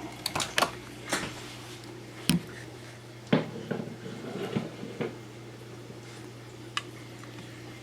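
A plate of cherries being handled into a microwave oven: scattered clicks, knocks and clinks, the sharpest about two and a half and three and a half seconds in, over a low steady hum.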